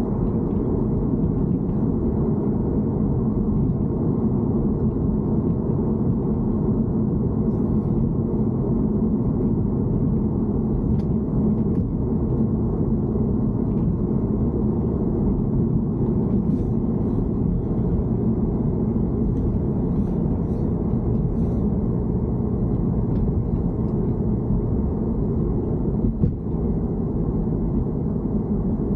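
Steady low rumble from a BMW E90 3 Series, recorded as the car's abnormal noise, with a few faint light ticks now and then.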